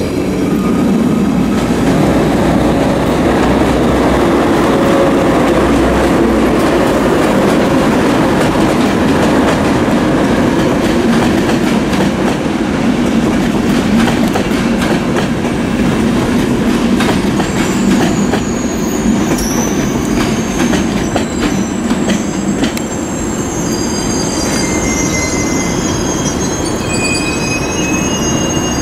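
Passenger trains moving through a station: a steady rumble of wheels on rails, with clicks over the rail joints around the middle. Then come several high wheel squeals, from about two-thirds of the way through.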